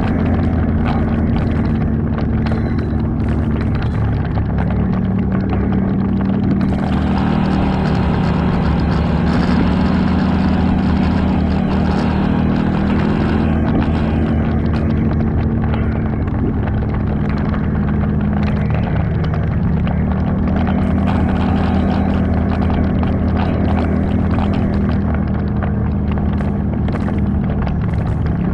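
ATV engine running under way, its pitch stepping up and down with the throttle several times, with frequent short clicks and knocks over it.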